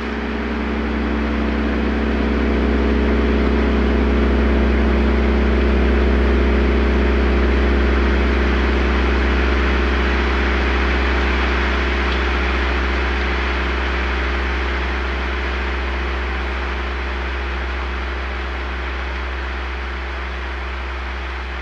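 Sustained drone of struck and rubbed gongs: a deep low hum beneath several steady ringing tones and a hissing shimmer. It swells over the first few seconds, then slowly fades.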